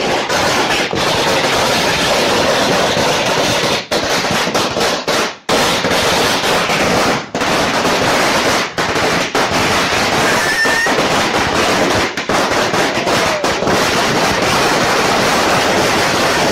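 A long string of firecrackers going off in a rapid, continuous crackle, with a few brief breaks.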